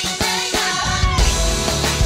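Upbeat recorded music with a steady drum beat and a voice singing; a heavy bass comes in strongly about a second in.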